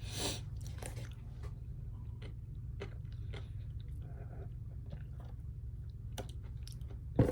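A person chewing and biting food close to the microphone, with scattered small mouth clicks and crunches over a steady low hum. There is a short rush of noise right at the start and a single sharp knock near the end.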